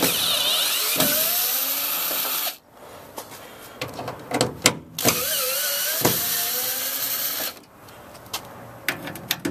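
Cordless drill backing out the screws that hold a plastic pickup bed liner. The motor runs twice, about two and a half seconds each, its whine rising as it spins up and wavering under load, with a few clicks in between.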